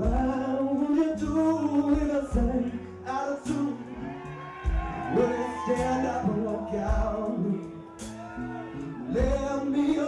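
Live band music: a man sings lead into a microphone over electric bass and guitar.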